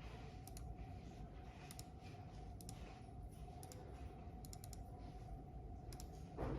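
Akko LW325 computer mouse buttons clicking, each click a quick press-and-release pair, coming roughly once a second over a faint steady hum, with one louder soft knock near the end. The mouse is being tested after a repair of its double-click fault.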